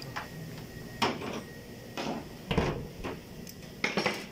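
The vented plastic cowl top panel being worked loose, giving a handful of irregular, sharp knocks and clacks.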